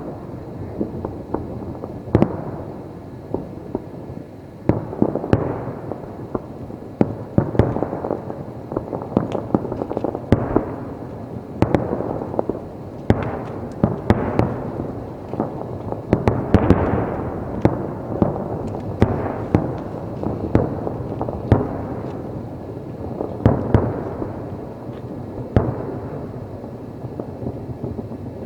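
Aerial fireworks in a dense finale barrage: shells bursting in quick succession with sharp bangs over continuous crackling and rumbling, thickest about halfway through.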